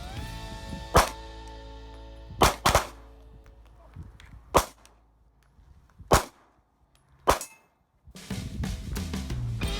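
About six sharp gunshots at uneven intervals, two of them in quick succession, over background music that fades away and comes back near the end.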